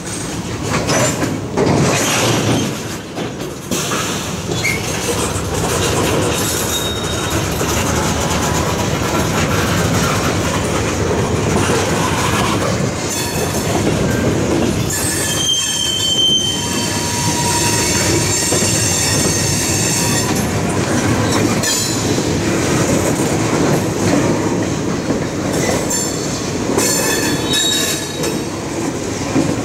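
Freight train's tank cars rolling past, steel wheels clacking and squealing on the rails, with sharper high squeals about halfway through.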